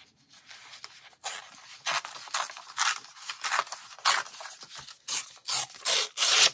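Sheet of printed patterned paper, a little heavier than copy paper, handled, rubbed flat and torn by hand: a series of short rustling, scraping strokes starting about a second in, the loudest near the end.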